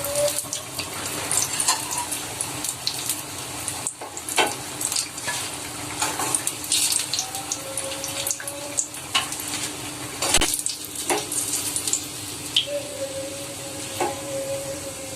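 Gram-flour-battered broad bean bajji deep-frying in hot oil: a steady sizzle with frequent sharp crackles.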